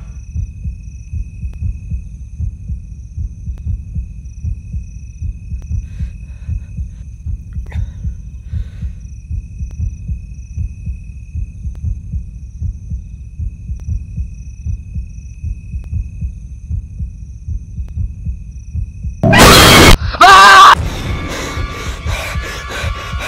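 Heartbeat sound effect: a steady, regular low thudding. Near the end come two very loud, harsh bursts about a second apart, and then music with held tones.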